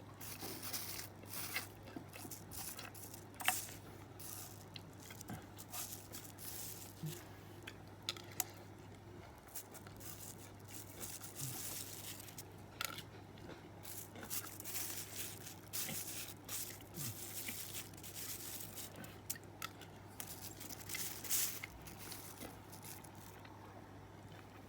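Close-up eating sounds of a person eating fried rice and chicken: irregular chewing and biting, with sharp little clicks and crinkles from time to time, over a steady low hum.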